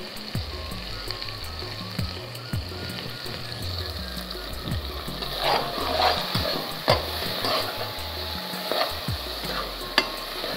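Tomato, pepper and onion sauce frying in oil in a pot, with a metal spoon stirring through it; from about halfway the spoon clicks and scrapes against the pot several times.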